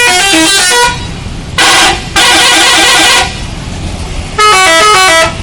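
Bus telolet horn, a multi-tone musical horn, playing a quick run of stepping notes, then a short blast and a longer blast with several tones sounding together, then another quick run of notes near the end.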